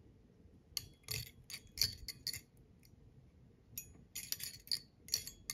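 Faint, irregular high-pitched ticks and scratches of tying thread being wrapped on a bobbin holder around the head of a fly in a vise, tying down the copper wire ribbing. They come in two short clusters.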